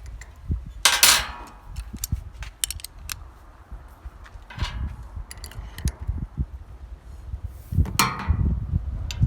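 Metal tools and parts being handled: scattered clinks and knocks, with two louder ringing metal clanks, about a second in and near the end.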